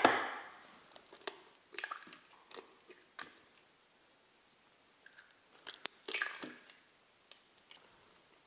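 Eggs cracked one after another against the rim of a kitchen robot's stainless steel bowl: scattered short taps and shell crunches, with a quiet pause of about two seconds in the middle.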